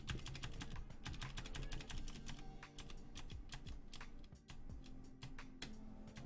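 Keys of a Vortex Pok3r mechanical keyboard being pressed in quick succession: a dense run of clicking and clacking from the switches and PBT keycaps. Background music runs underneath.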